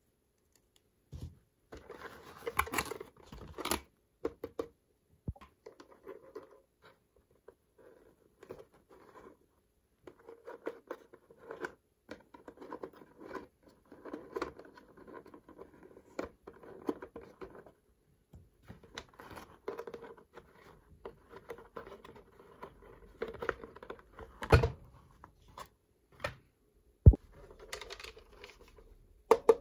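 Toy packaging being opened and handled by hand: stop-start rustling, crinkling and tearing, with many small clicks and taps of plastic pieces and two sharp knocks in the last third.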